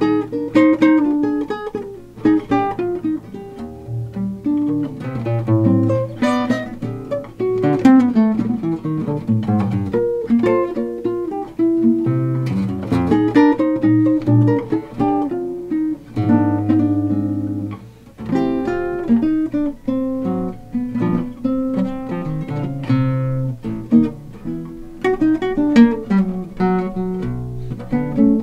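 Solo eight-string nylon-string guitar played fingerstyle in chord-melody style: plucked chords and a melody line over low bass notes.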